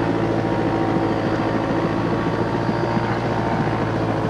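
A light airplane's piston engine and propeller running steadily, heard from inside the cabin as an even hum with several held tones.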